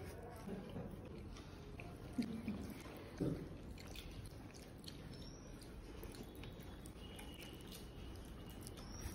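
Fingers squishing and squelching rice mixed with curry on a banana leaf, soft wet sounds of eating with the hand, with two louder squelches about two and three seconds in.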